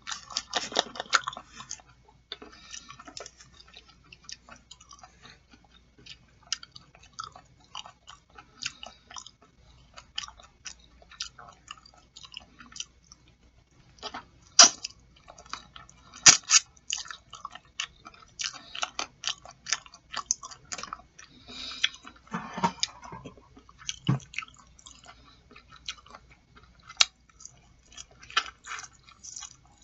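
Close-miked chewing and wet mouth sounds of someone eating boiled chicken feet: an irregular run of short smacks and clicks.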